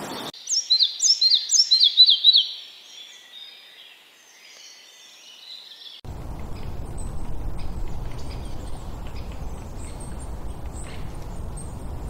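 A songbird singing a fast run of high, down-slurred notes, loudest at first and thinning to faint twitters. About halfway through the sound changes abruptly to a steady rushing background noise with faint high chirps.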